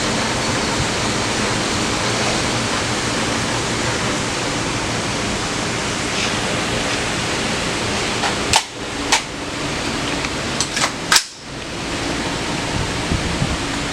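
Steady wind noise on the microphone, broken between about eight and eleven seconds in by several sharp gunshot cracks at the range.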